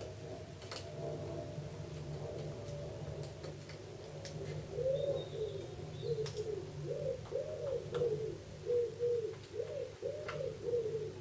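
A bird cooing repeatedly: a run of short, low, rising-and-falling coos that starts about four seconds in, over a steady low hum. A few light clicks come from the small screwdriver and screws as the screws are taken out and set down.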